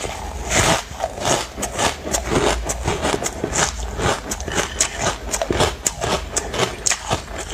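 Hard ice chunks being bitten and chewed close to the microphone: a rapid, irregular run of crisp crunches and cracks.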